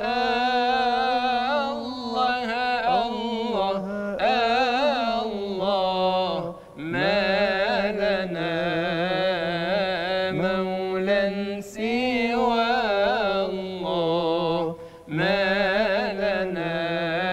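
A male munshid singing Islamic devotional inshad solo, drawing out long melismatic lines with wavering ornaments. He sings in several sustained phrases, with short breaks for breath between them.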